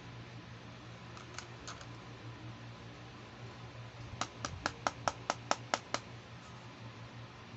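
Fingernails tapping on a hard plastic compact case: a few faint taps, then a quick run of about nine sharp taps, about five a second, over a steady low hum.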